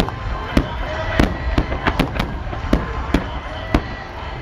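Aerial firework shells of a starmine barrage bursting, about ten sharp bangs over three seconds, some coming in quick pairs, over a steady low rumble; the bangs stop about half a second before the end.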